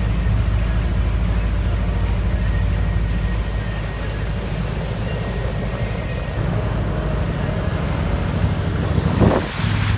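Motorboat engine running steadily while underway, a low rumble mixed with water and wind noise. There is a brief louder burst of noise about nine seconds in.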